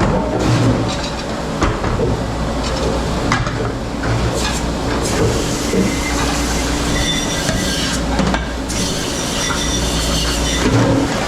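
Steady running noise of a commercial kitchen dish pit, with a constant low hum and scattered clattering of dishes and racks.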